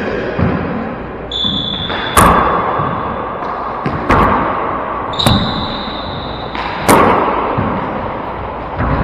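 Four-wall handball rally: several sharp smacks of a gloved hand hitting the rubber ball and the ball striking the walls and floor, each echoing around the closed court. Sneakers squeak on the hardwood floor twice, about a second in and about five seconds in.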